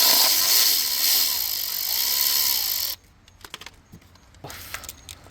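Cordless power tool spinning out a 10 mm bolt, running steadily for about three seconds and then stopping abruptly, followed by a few light metal clicks.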